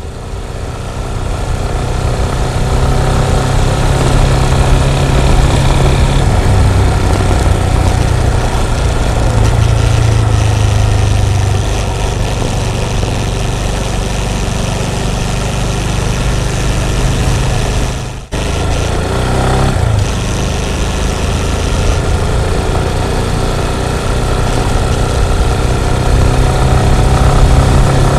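Motorcycle engine running steadily, with a short break about eighteen seconds in.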